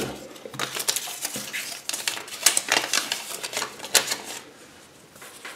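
Small plastic toy parts and a Kinder Surprise egg capsule clicking and rattling as they are handled, a quick run of clicks and taps that stops about four and a half seconds in.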